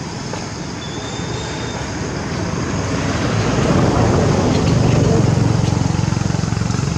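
A motor engine passing by, its sound swelling from about two seconds in to a peak around four to five seconds, then easing slightly.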